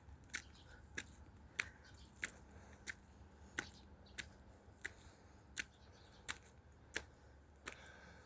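Footsteps of a person walking up a steep slope on a hard path: sharp, even steps about three every two seconds.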